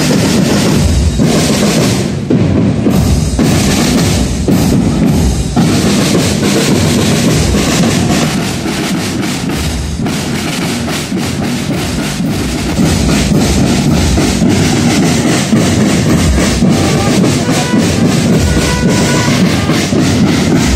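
Live music with loud, rapid drumming, bass drum and snare drum prominent.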